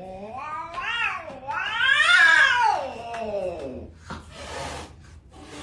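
Domestic cat yowling: a short call that rises and falls, then a longer, louder drawn-out yowl, followed by two short breathy bursts.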